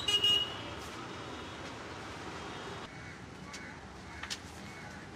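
Street traffic noise with a short vehicle horn toot right at the start, then steady traffic noise that drops a little about three seconds in, with a few faint clicks.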